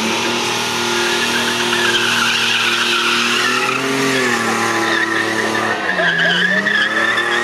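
VN Holden Commodore doing a burnout: the engine is held at high revs while the spinning rear tyres squeal on the track. The revs dip briefly about four seconds in and drop again near six seconds before climbing back.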